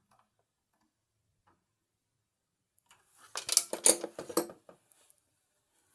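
A quick run of clicks and clattering from small hard objects being handled, starting about three seconds in and lasting about a second and a half, with only a few faint ticks before it.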